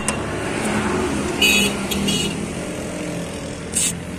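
Air-hose chuck clicking onto a motorcycle tyre valve and compressed air hissing into the tyre, with a few short, sharp hisses of escaping air as the chuck shifts, over a motor running steadily underneath.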